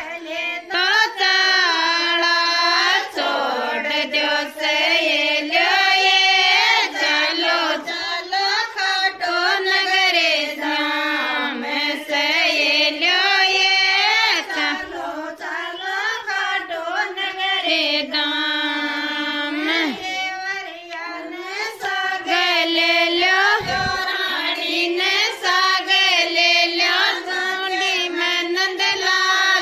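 A woman singing a Rajasthani folk devotional song to Khatu Shyam ji, the melody carried in long notes that slide in pitch.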